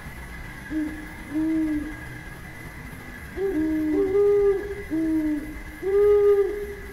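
Owls hooting: a run of short hoots at two pitches, a lower and a higher voice alternating and sometimes overlapping, the higher hoots longer and louder near the end.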